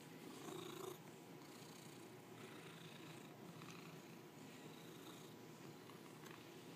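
Domestic cat purring faintly and steadily.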